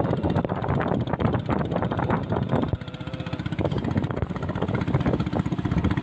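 Engine of a small wooden fishing boat running steadily under way at sea, with water rushing and splashing along the hull. The sound dips briefly a little under three seconds in.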